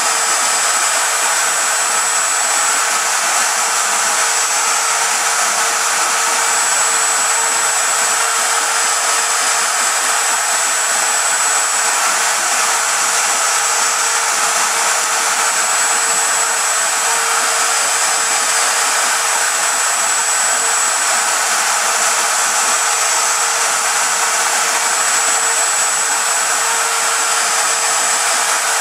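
Spindle of a home-built CNC router running steadily as its bit carves into cherry, a continuous whine with a steady hum and a high whistle that comes and goes.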